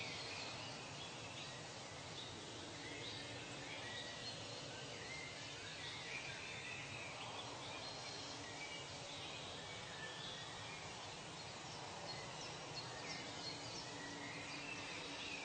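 Nature ambience: scattered short bird calls and chirps over a steady background hiss.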